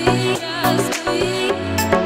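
Background music with a steady drum beat and a melody over it.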